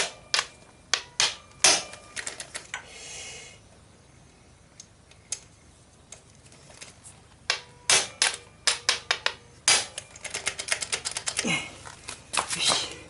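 Sharp metal-on-metal hammer blows, a small sledgehammer striking a tool held against a Honda CB750 motorcycle's frame near the engine. The blows come irregularly, a handful at first, then after a pause a longer series that turns into a quick run of light taps about ten seconds in.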